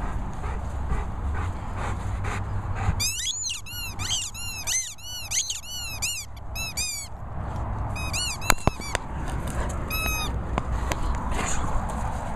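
A squeaky dog toy squeaked over and over in quick runs, about three squeaks a second, each one rising and falling in pitch. The squeaks start about three seconds in, stop for a moment, and come again in short bursts later.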